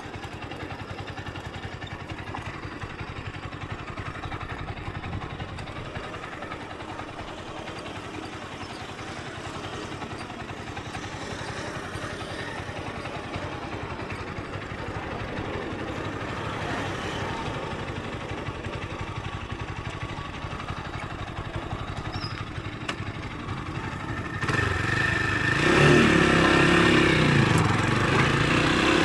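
Motorcycle engine running at low speed on a training ride, its sound rising and falling. About three-quarters of the way through it becomes clearly louder as it comes close.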